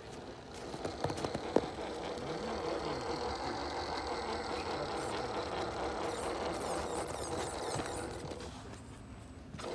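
Electric motor and gearbox of a radio-controlled Jeep Cherokee scale crawler whining as it drives through snow, the pitch wavering with the throttle, easing off near the end. A couple of sharp clicks come about a second and a half in, the louder one the loudest sound here.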